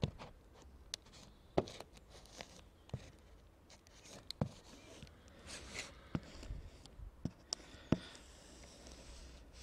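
Small covering iron sliding over laminating film on an EPP foam wing, ironing down the overlapping film: quiet rubbing with about eight irregular sharp ticks.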